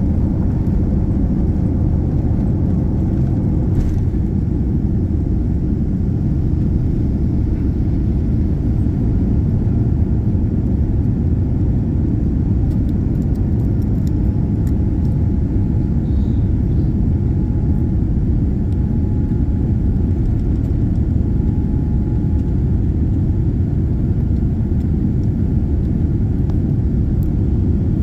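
Cabin noise of a Boeing 787-9's Rolls-Royce Trent 1000 engines at takeoff thrust, heard from a window seat near the wing as the jet lifts off the runway and climbs: a steady, loud low rumble of engines and airflow.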